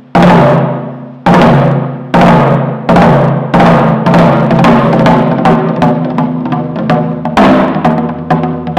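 Korean traditional (gugak) percussion: heavy drum strikes with a long ringing decay, about a second apart at first and then coming faster and faster until they run into a dense roll.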